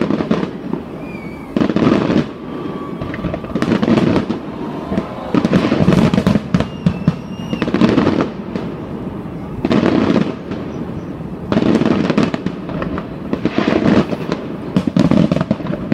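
A fireworks display going off in a steady barrage: loud booming bursts every second or two, each followed by dense crackling.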